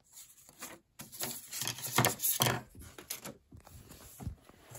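Sheets of paper being handled and rustled, with a run of irregular crinkles and a soft knock near the end as pieces are set down on the desk.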